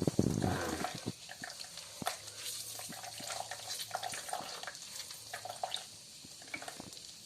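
Noni fruit pulp being wrung through a cotton T-shirt, its juice running and dripping out wetly. The liquid is loudest in the first second, then continues as scattered drips and squelches.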